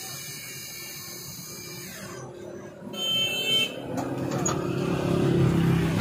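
Fanuc Tape Drill Mate Model T CNC drilling machine running: a steady high whine, a brief ringing tone about three seconds in, then louder motor and drive noise building from about four seconds in.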